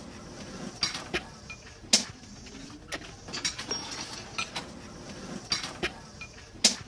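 Steel lorry part, a ball-ended rod, clinking and knocking against a metal anvil as it is set down and turned over by hand: scattered sharp clinks, the loudest about two seconds in and near the end.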